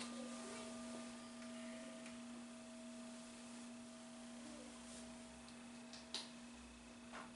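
Singing bowl ringing after a single mallet strike: one steady low tone with fainter higher overtones, slowly fading. It marks the start of a silent prayer. Two faint clicks near the end.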